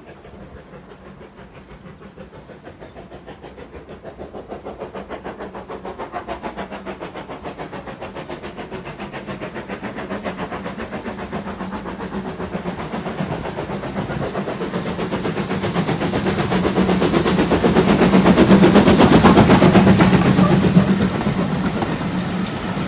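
Steam locomotive working hard, its rapid exhaust beats growing louder as it approaches and loudest as it passes, followed by its train of carriages rolling by.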